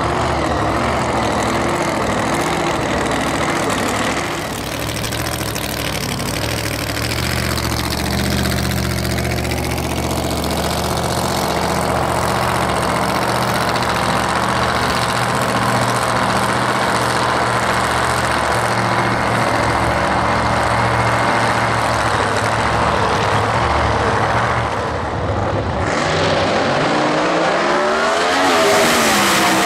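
Supercharged V8 of a blown Mustang drag car idling on the start line, then revving hard in a rising sweep as it launches near the end.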